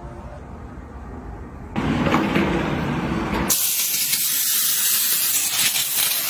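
A handheld steam cleaner's nozzle jetting high-temperature steam: a loud hiss that starts about two seconds in as a duller rush and turns into a high, sharp hiss about halfway through.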